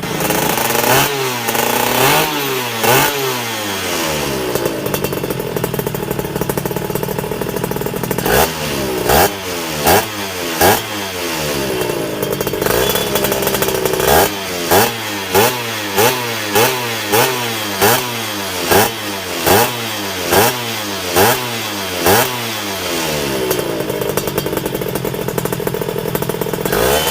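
Honda LS125 two-stroke motorcycle engine being blipped on the throttle from idle. A few revs come early, then a run of quick, evenly spaced blips about every three-quarters of a second, each pitch rising and falling back to idle, before it settles to idling near the end.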